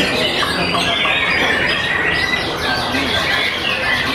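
Many caged white-rumped shamas singing at once: a dense, overlapping chorus of loud whistles, trills and chirps.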